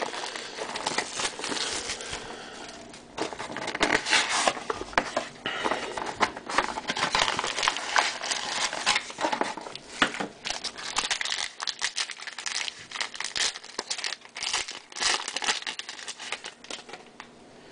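Shiny plastic pack wrapper from a Topps Inception football box being torn open and crumpled in the hands, with irregular crinkling and crackling that eases off near the end, along with the small cardboard box being handled.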